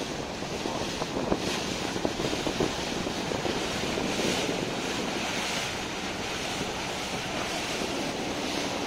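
Wind buffeting the microphone over the steady rush of water churned up along the side of a moving river passenger boat.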